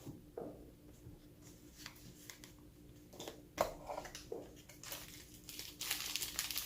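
Microphone accessories and their packaging being handled during unboxing: scattered light clicks and knocks, then a stretch of plastic crinkling near the end.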